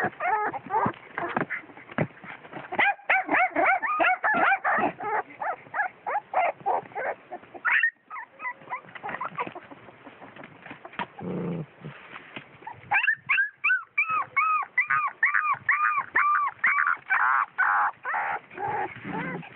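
Puppies yelping and whimpering in many short, high-pitched cries in quick succession. About two-thirds of the way through the cries settle into an even run of about three a second.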